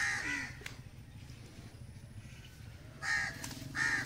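A crow cawing: one harsh caw at the start, then, after a pause of about two and a half seconds, two more caws in quick succession near the end.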